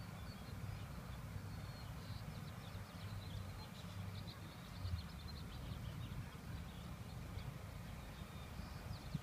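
Outdoor ambience: a low rumble of wind on the microphone with a few soft bumps, and faint bird chirps and twitters scattered throughout.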